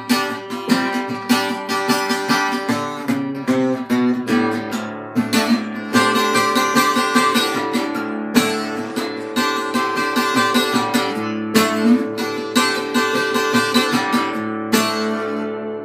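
Epiphone EL-00 parlor acoustic guitar, played with a flat pick in an alternate tuning: a quick, driving run of picked notes and strums. Near the end a last chord is struck and left to ring out and fade.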